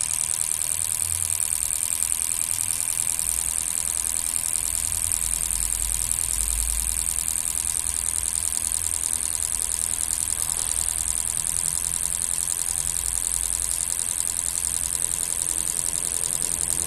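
Four petrol fuel injectors pulsing on an injector test bench at 3 bar, a fast steady clicking with a high hiss of test fluid spraying into the cylinders, during a flow-equalisation test of a new Bosch injector against three used ones.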